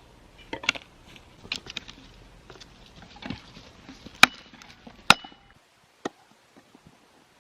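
A series of irregular sharp knocks and clacks, hard objects striking, about seven in all. The loudest two come about four and five seconds in.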